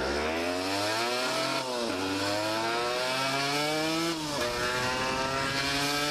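Aprilia RX 125 motorcycle engine accelerating through the gears: the pitch climbs, drops at a gear change about a second and a half in and again about four seconds in, then climbs again. Its blown-apart exhaust has been refitted, and it now runs at a normal level of noise.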